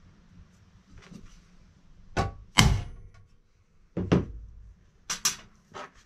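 Sharp metal knocks and clinks on a steel workbench as small steel pieces and a hammer are picked up and set down on steel sheet: about six irregular strikes, the loudest about two and a half seconds in.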